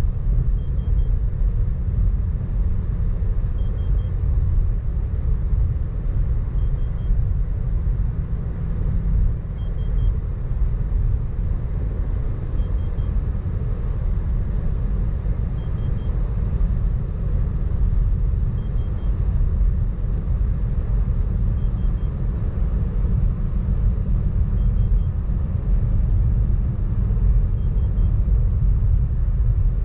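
Steady low rumble of road, tyre, wind and engine noise inside the cabin of a 2018 Mitsubishi Pajero Sport cruising at highway speed. A faint double beep repeats about every three seconds.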